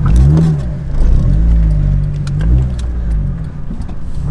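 K24-swapped Honda Element engine heard from inside the cabin under hard acceleration. The revs rise and fall near the start and again near the end as the driver works the manual gearbox, holding fairly steady in between.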